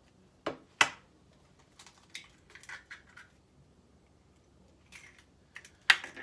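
Eggs being cracked: a few sharp knocks of shell against a hard edge, with small crunching and clicking sounds in between and a loud knock near the end.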